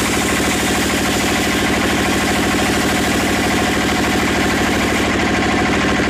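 Belt-driven band sawmill running, its drive engine going with a fast, even beat that stays steady throughout.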